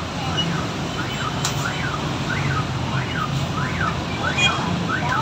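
An electronic siren wailing, sweeping up and down in pitch about twice a second and repeating steadily, over the continuous hum of heavy motorbike traffic.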